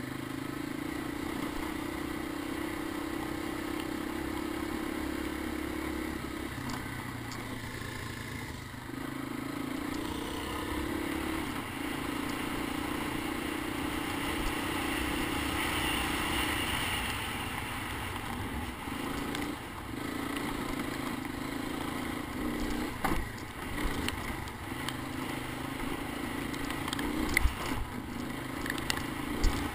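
Honda ATC250ES Big Red three-wheeler's single-cylinder four-stroke engine running under way, its note dropping and rising a few times with throttle and gear changes. A few knocks and rattles from the machine jolting over bumps come near the end.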